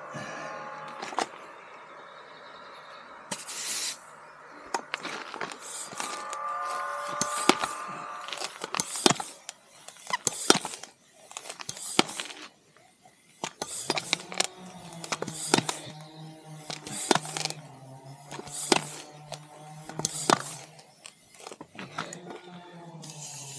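Background music with sustained notes, over a run of short, sharp hissing strokes of a hand pump inflating a motorcycle tyre after a puncture repair, coming roughly once a second.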